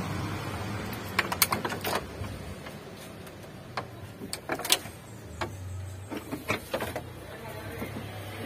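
Irregular clusters of sharp metal clicks and knocks as a Suzuki Carry Futura cylinder head is set down and shifted into place on the engine block.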